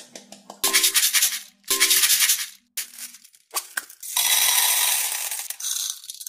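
Small beads rattling into a metal muffin-tin cup: two short, identical rattling bursts, then a longer pour lasting about a second and a half in the second half.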